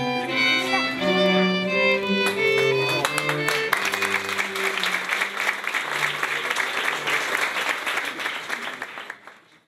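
A violin and cello duo play the closing notes of a piece, then about four seconds in a crowd breaks into applause, which fades out near the end.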